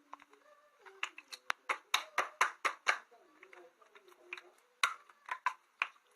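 Slime being squeezed and pressed by hand, giving a quick, irregular string of sharp clicks and pops, densest between about one and three seconds in, with a few more near the end.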